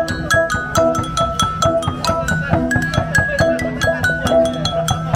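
Đàn đá, the Vietnamese stone lithophone, played as a quick melody: fast, sharply struck pitched notes, several a second, over a lower recurring tone.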